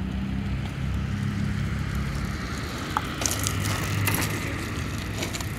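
Outdoor street ambience: a steady low rumble, with a cluster of crackling clicks about three to four seconds in.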